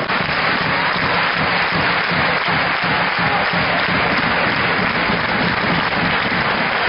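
Crowd applauding: a dense, steady clatter of many hands clapping.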